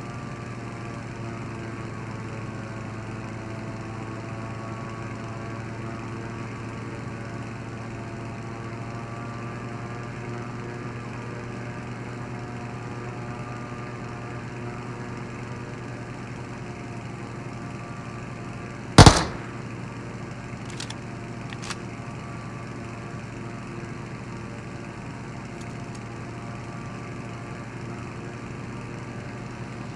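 Steady drone of a running motor or engine. A single loud sharp click or knock about two-thirds of the way through, then two fainter clicks a couple of seconds later.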